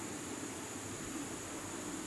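Steady background hiss with no distinct sounds standing out.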